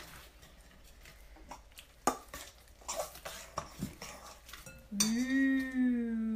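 Spoon clinking and scraping against a mixing bowl as thick paint slime is stirred. About five seconds in, a voice holds a single sung or hummed note for over a second.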